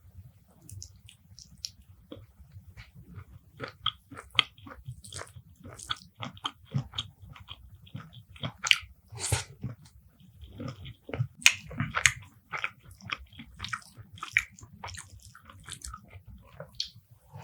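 Close-miked eating: wet chewing and lip smacking on spicy beef bhuna with rice, with occasional crunches, in quick irregular clicks throughout.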